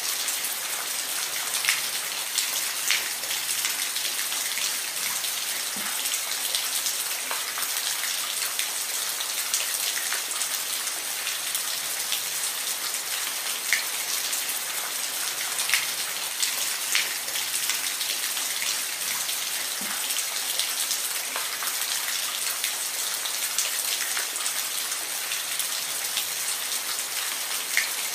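Steady rain falling, an even hiss with scattered louder individual drops tapping on a surface.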